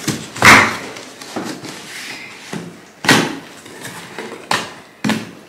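Packing tape on a cardboard box being slit with a blade and the cardboard flaps pulled open: about half a dozen short scraping rips, the loudest about half a second in.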